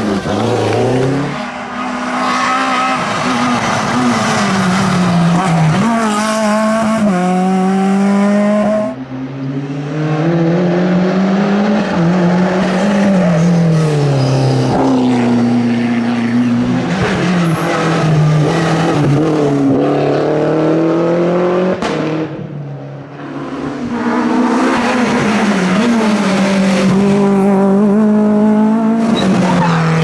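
Rally cars driven flat out through tight mountain bends, one after another: engines revving hard, pitch climbing and dropping with each gear change and lift, with tyres squealing in the corners. The sound breaks twice as one car's run gives way to the next.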